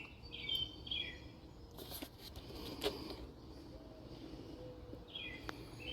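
Faint outdoor ambience: a small bird chirping in short, repeated notes, twice near the start and again near the end, with a few faint clicks in between.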